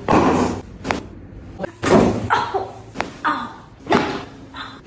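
Thuds and slaps of a chiropractic adjustment, about five in a row roughly a second apart, with a short sharp crack about three seconds in.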